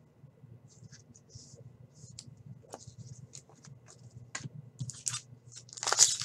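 Trading cards and plastic card sleeves being handled: light scratching, sliding and clicking as cards are rubbed and tapped together. Near the end comes a louder crinkle of a foil card pack being handled.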